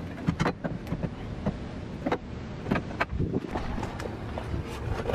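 Scattered metal knocks and clanks, a dozen or so irregular sharp hits, as the worn old front strut is worked loose and pulled out of the Miata's suspension.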